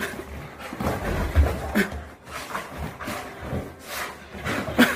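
A freshly bathed Old English Sheepdog rubbing and scrambling its wet coat against sofa cushions: irregular rubbing and scuffling swishes with a few soft thumps.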